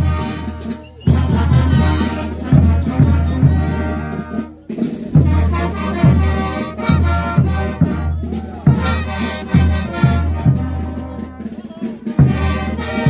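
Brass band playing with horns over a steady bass drum beat. The music breaks off sharply for a moment three times.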